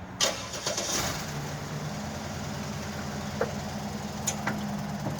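A vehicle engine idling steadily, with a sharp click just after the start and a few light ticks later.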